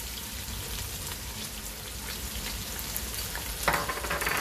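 Sliced onions sizzling in hot oil in a pot, a steady frying hiss with a louder burst of sizzle near the end.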